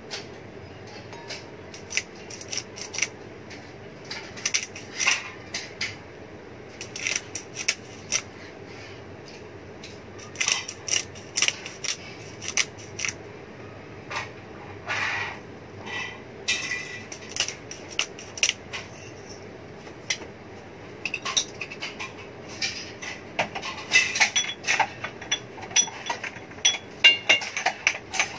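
Scattered clicks, clinks and short rattles of kitchen things: a glass spice grinder, utensils and a ceramic bowl, while food is seasoned. Near the end the clinks come thicker and ring more.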